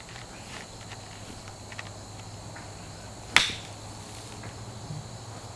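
A golf club striking a ball from the fairway: one sharp crack about three and a half seconds in, with a short tail after it.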